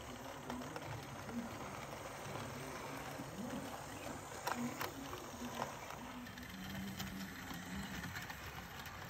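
Model train running on its track: the small electric motor of a model steam locomotive hums steadily as the locomotive and its wagons roll along the rails, with a few sharp clicks about halfway through.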